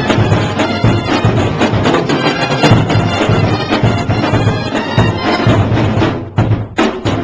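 Marching band playing: wind instruments over a steady pounding drum beat. The music thins for a moment near the end, then comes back in with a hit.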